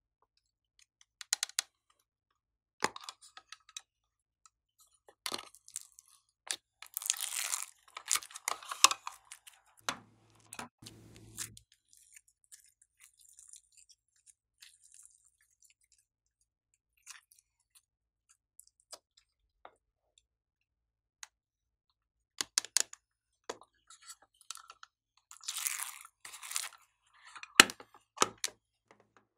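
Hands squeezing and stretching slime, with irregular crackly squishes and pops that come loudest in two stretches, early on and again near the end. Sharp clicks are heard now and then as plastic toy boxes are handled and opened.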